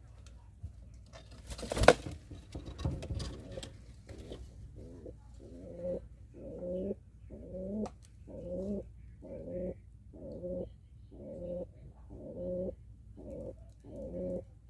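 Domestic pigeon cooing in a steady run of repeated low coos, about one every three-quarters of a second: the rhythmic courtship coo of pigeons mating. Near two seconds in there is one brief loud clatter.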